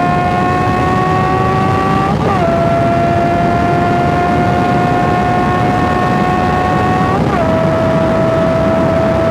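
Honda CB650R's inline-four engine and exhaust running under way at a steady cruise. The engine note climbs slowly, then drops a little abruptly twice, about two seconds in and about seven seconds in.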